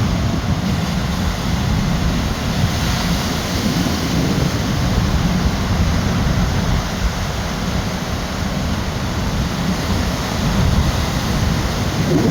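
Heavy ocean surf breaking and washing in a steady roar, rising and falling with the waves, with strong wind buffeting the microphone.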